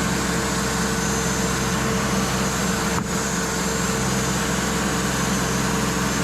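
Cook's AC-36 bandsaw sawmill running steadily, with a constant engine or motor hum.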